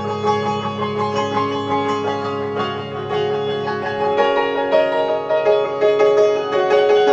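Calm instrumental music of held, ringing notes over a low drone that stops about four seconds in.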